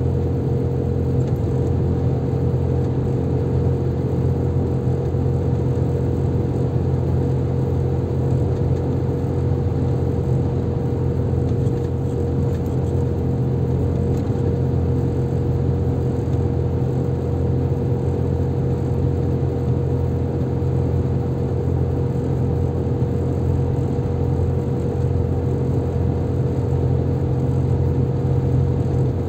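Car driving at a steady cruising speed: an even low rumble of engine and tyres on the road, with a constant hum.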